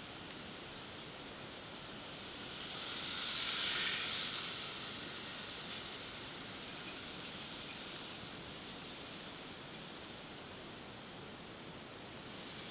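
Street traffic ambience: a steady hiss, with a passing vehicle that swells and fades about four seconds in. A run of short high chirps and a couple of light clicks follow.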